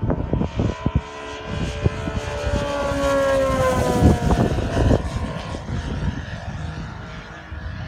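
Twin Saito FG-90R3 three-cylinder four-stroke radial engines of an RC model Tigercat flying past: the engine sound swells to its loudest about three to four seconds in, the pitch drops as it passes, then it fades.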